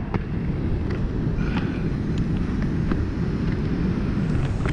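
Wind buffeting the microphone: a steady, gusty low rumble, with a few faint clicks over it.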